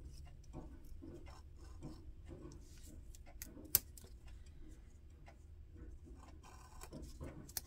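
Faint small clicks, taps and rustles of hands handling a roll of washi sticker tape and a craft knife on a cutting mat, with one sharper click about four seconds in.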